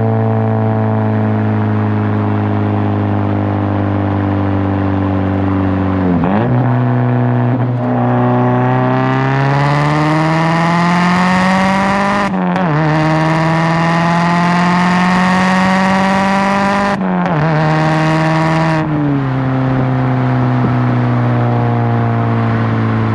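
Turbocharged Mazdaspeed3 four-cylinder running through a full CPE exhaust with a catless downpipe. It cruises at a steady pitch, dips about six seconds in, then climbs under hard acceleration with gear changes about twelve and seventeen seconds in, before easing off near the end.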